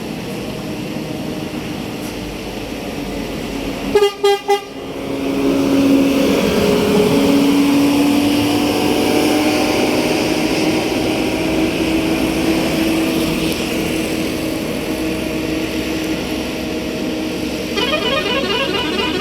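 Bus telolet horns: three short toots about four seconds in, then a long steady low tone that rises slightly in pitch. Near the end a basuri horn starts a rapid warbling multi-note tune.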